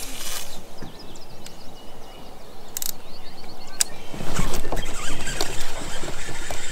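Knocks and handling noise from an angler moving about on a plastic fishing kayak, with small birds chirping. About four seconds in, a louder rustling noise with many small clicks sets in.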